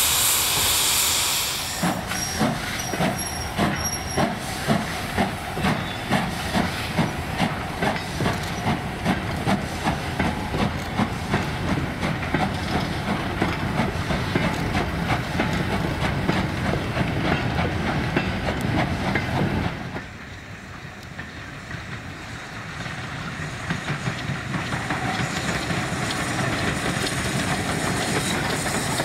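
A steam locomotive hauling a goods train away under load: a loud hiss of steam stops about two seconds in, then its exhaust beats come at about one to two a second, getting quicker. About twenty seconds in this cuts to a second steam-hauled train drawing closer, its running rumble and wheels on rail growing louder.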